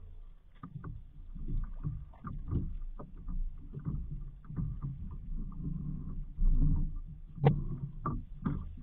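Water sloshing and splashing in shallow water and irregular knocks against a small outrigger boat's hull as it is pushed and a man climbs aboard, with a sharp knock about seven and a half seconds in.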